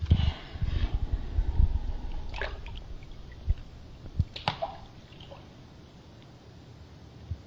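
Water sloshing and dripping around a head in shallow bathwater, with low bumping in the first two seconds and a few sharp drips or small splashes near the middle.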